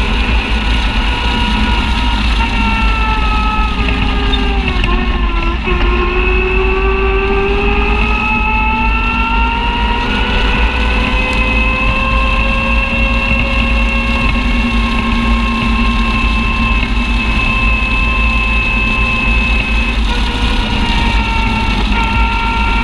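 Side-by-side UTV driving along a trail: the engine runs at a steady pace with a high whine in several pitches, over a heavy low rumble. The whine dips briefly about five seconds in, then slowly rises again.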